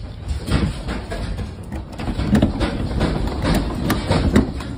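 A room shaking in a strong earthquake: a low rumble with irregular rattling and knocking from furniture and loose objects.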